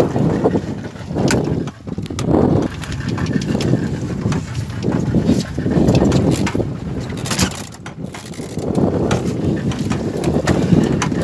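Wind rumbling on the microphone in uneven gusts aboard a small open boat at sea, with a few sharp knocks on the hull and deck as a wahoo is gaffed and hauled aboard.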